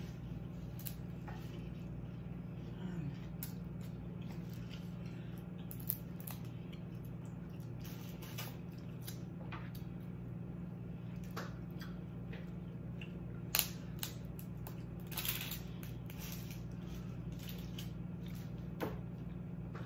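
Snow crab leg shells cracking and snapping as they are broken apart by hand, in scattered sharp cracks at irregular intervals, the loudest a little past the middle, over a steady low hum.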